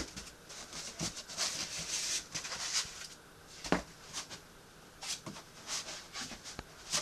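Foam packing blocks being pulled out of a cardboard box and handled: a string of scraping, rustling handling noises, with one sharper knock about three and a half seconds in.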